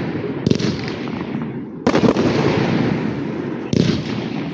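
Fireworks display: three loud bangs, about half a second, two seconds and nearly four seconds in, each trailing off into a long, dense crackle.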